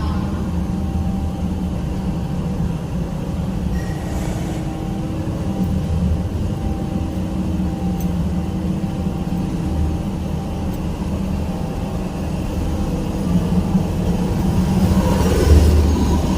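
Industrial boiler burner running: a steady low rumble with a constant mechanical hum. A brief hiss comes about four seconds in, and the rumble swells louder near the end.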